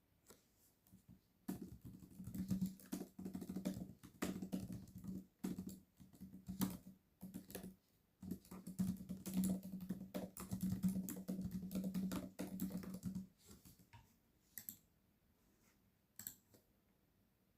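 Typing on a computer keyboard: two runs of rapid keystrokes separated by a short pause, followed by two separate single clicks near the end.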